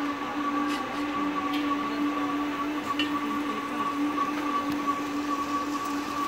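A steady machine hum with a low tone and a higher whine that do not change, over a noisy background, with a few faint clicks.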